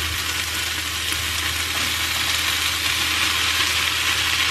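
Sliced red peppers and onions sizzling in a hot frying pan as they are tipped in from a bowl: a steady frying hiss, with a low steady hum underneath.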